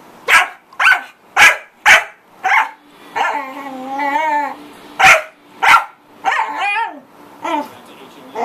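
A corgi barking: a quick run of sharp, loud barks, a pause of about two seconds, then more barks.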